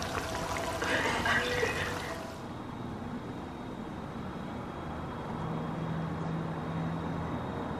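Flour-coated chicken pieces deep-frying in hot oil, with steady bubbling and crackling. The frying sound cuts off abruptly about two seconds in, leaving a low steady background hum.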